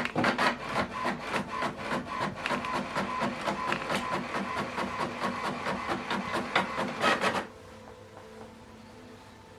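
HP Envy 6030e inkjet printer printing a page, with a fast, busy clicking and rubbing from the print carriage and paper feed. It stops abruptly about seven and a half seconds in.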